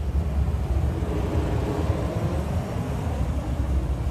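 Class 399 Citylink electric tram-train pulling away from the platform past the listener: a steady low rumble, with a faint whine swelling and fading about halfway through.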